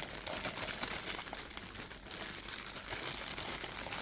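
Packaging crinkling and rustling as it is handled, a steady run of small crackles and clicks.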